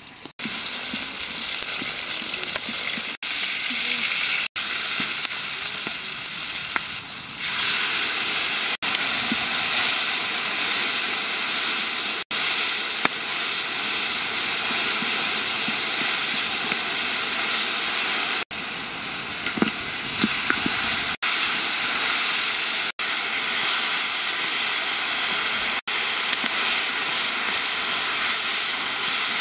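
Chilies, lemongrass and chicken pieces sizzling hard in hot oil in a large wok, stirred with a wooden spatula. A steady frying hiss with several brief dropouts; it grows louder and fuller about seven seconds in.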